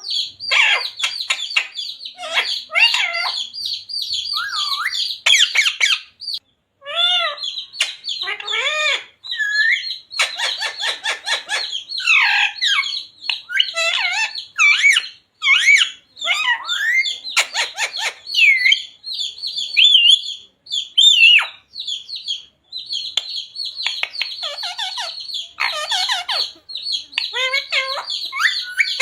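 Pet parrot chattering: rapid chirps, squawks and whistled calls that slide up and down in pitch, in quick runs with short pauses.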